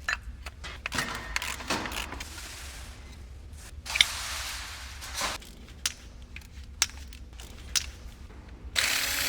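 Metal clanks, knocks and scraping as parts and hand tools are handled, with one sharp knock about four seconds in and a loud burst of hissing near the end.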